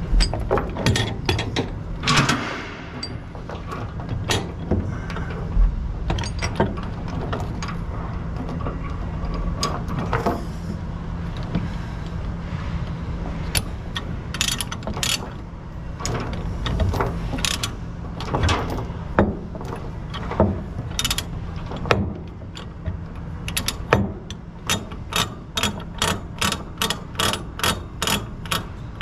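Ratchet being worked to tighten a cargo tie-down: irregular clicks at first, then an even run of about two clicks a second over the last few seconds, over a steady low hum.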